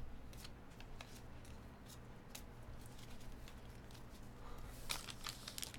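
A stack of baseball trading cards being handled: soft slides and taps of card stock as the cards are shuffled through and squared. The taps are a little louder about five seconds in.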